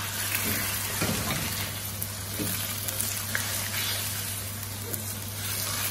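Diced raw chicken and onions sizzling in hot oil in a wok, the chicken just added, while a wooden spatula stirs them with a few light scrapes and taps against the pan.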